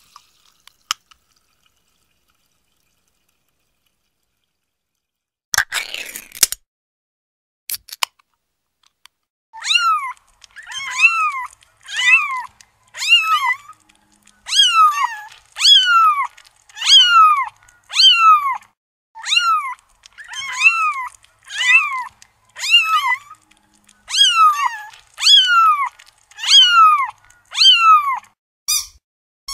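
A cat meowing over and over, about twenty short meows, each falling in pitch, roughly one a second, starting about ten seconds in. Before the meows there are only a brief rush of noise and a couple of sharp clicks.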